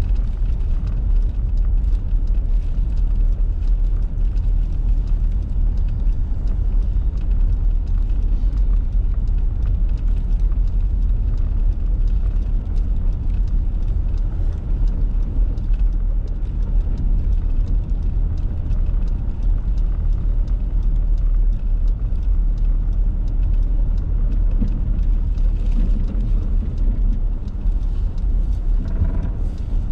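Steady low rumble of a car driving, its engine and tyres on a snowy road, heard from inside the cabin.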